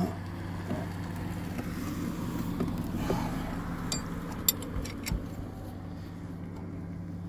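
A steady low hum with a few light metallic clicks about four to five seconds in, as a wrench on the crankshaft pulley bolt turns the engine over by hand.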